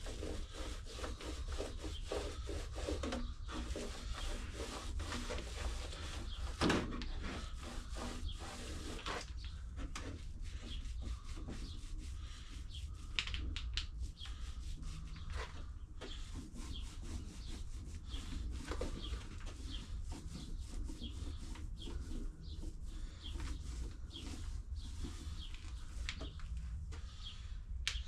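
Epoxy being spread over a wooden model-boat hull: many short, irregular rubbing and scraping strokes of the spreader across the surface, one stronger stroke about seven seconds in, over a steady low rumble.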